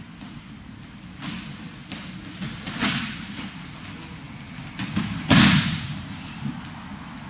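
Bodies thudding onto the dojo's matted floor as the attacker is thrown and takes breakfalls: a few thuds, the loudest a little over five seconds in.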